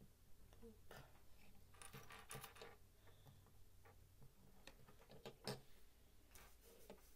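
Small Lego plastic pieces clicking and tapping against each other and on a wooden tabletop as they are handled, in faint scattered clicks with a busier cluster about two seconds in and another about five seconds in.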